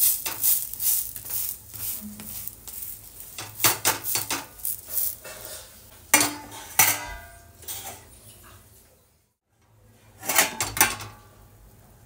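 Metal spatula scraping and tapping on a flat metal tawa, and a steel lid clinking and ringing as it is set over a moong dal pancake and lifted off again. The knocks come in clusters, with a brief gap about nine seconds in.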